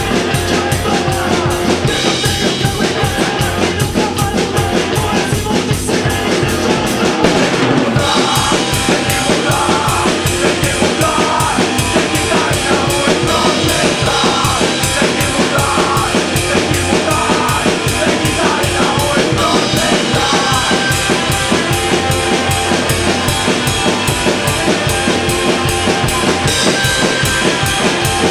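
Fast punk rock song with a drum kit driving a steady, fast beat of bass drum, snare and cymbals under sustained pitched band parts. The low end drops out briefly about seven seconds in, and a fuller section starts at about eight seconds.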